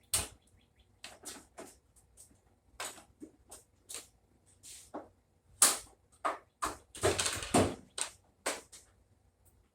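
Irregular clicks, taps and knocks of hands and tools on a washing machine's cabinet as its top panel is taken off, with a longer, louder rattle about seven seconds in.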